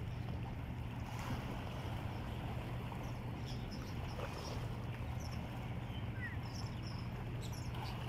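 Seaside ambience: a steady low hum under a wash of noise, with faint, short, high-pitched seabird calls several times, more of them in the second half.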